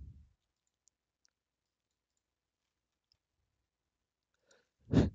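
Near silence, broken by a few faint, short computer mouse clicks; a man's voice ends at the start and begins again near the end.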